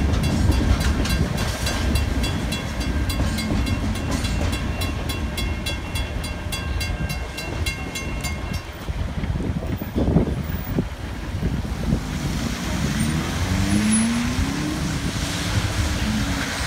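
Level-crossing warning bell ringing in rapid, even strokes over the low rumble of a passing freight train; the bell stops about nine seconds in. Then cars pull away across the crossing, their engines rising in pitch and their tyres hissing on the wet road.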